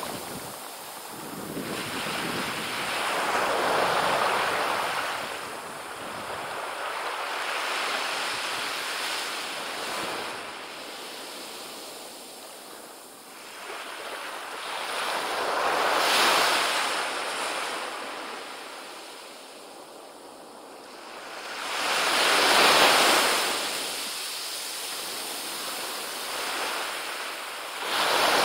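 Ocean surf on a sandy beach: small waves breaking and washing up the shore, the noise swelling and fading with each wave every several seconds.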